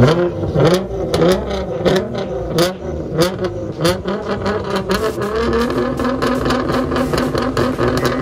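Nissan GT-R's twin-turbo V6 held on a two-step launch limiter, its revs bouncing up and down with a fast, irregular string of exhaust pops and crackles. About five and a half seconds in the revs settle into a steadier hold.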